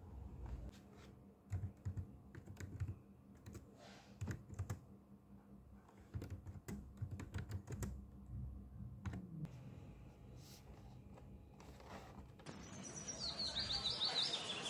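Typing on a laptop keyboard: irregular key clicks in short runs. Near the end, music with high chirping glides fades in and grows louder.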